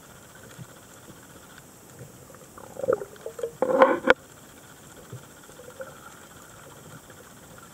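Underwater ambience heard through a camera housing, a faint steady hiss. About three seconds in comes a short, loud, gurgling rush of a scuba diver's exhaled bubbles, lasting about a second and a half and cutting off sharply.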